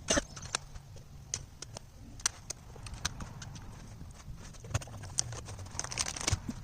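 Irregular sharp clicks and knocks as a power window switch and its wiring plug are handled and unclipped, a loud click at the start and a quick run of clicks near the end.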